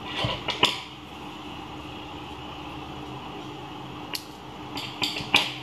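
Scissors snipping yarn, several short sharp snips near the end, over a steady background hum like a room fan. A few brief handling noises come about a second in.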